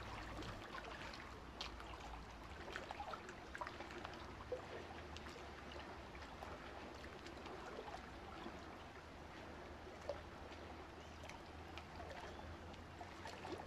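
Faint underwater ambience: a soft hiss with many small scattered clicks and crackles over a steady low hum.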